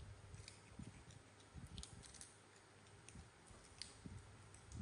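Near silence with faint, scattered clicks and a few soft low taps from young macaques eating, handling fruit pieces and their plastic plates.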